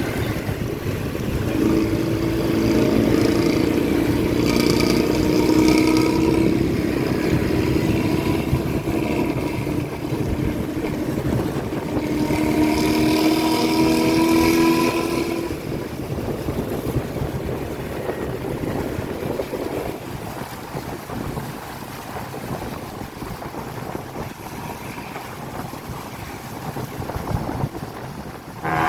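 Diesel bus engine with a raspy 'ngorok' exhaust, revving up twice with the pitch climbing a little each time, then running lower and quieter.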